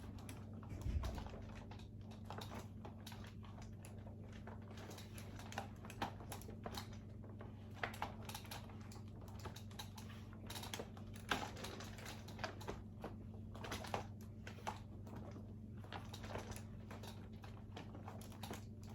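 Uppababy Vista stroller creaking as it is worked: irregular small clicks and creaks, a few a second, with a low thump about a second in.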